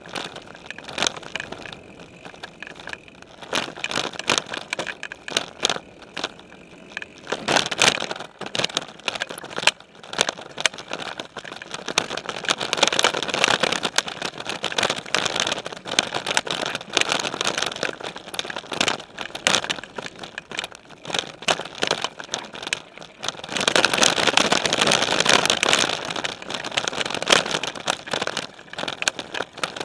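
Specialized Stumpjumper mountain bike riding over dirt singletrack, heard through a frame-mounted camera: knobby tyres crunching over dirt and rocks amid constant rattling and clattering of the bike. It is loudest over a rough stretch about twelve seconds in and another near the end.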